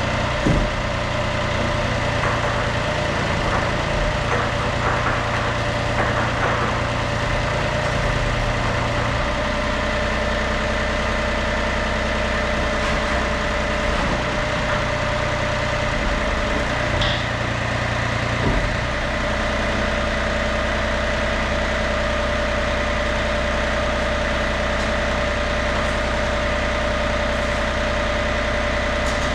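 Yanmar B37-1 mini excavator's diesel engine idling steadily, its low note shifting for a few seconds early on and again about 16 to 18 seconds in, with a couple of short knocks. This is a first run after a hydraulic filter and strainer change.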